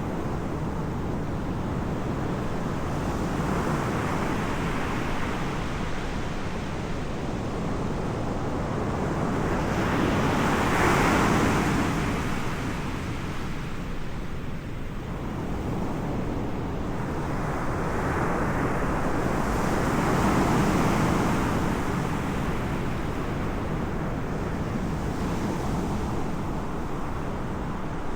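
Surf: waves breaking and washing in slow swells every several seconds, with wind buffeting the microphone.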